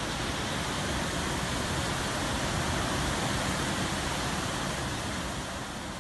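Waterfall rushing in a steady, even roar, easing off slightly near the end.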